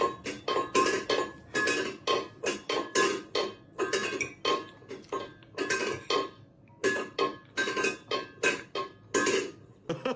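Rapid metallic clanking, about three strikes a second, each with a short ringing tone like a metal pot or bowl being knocked, with a brief lull about six and a half seconds in.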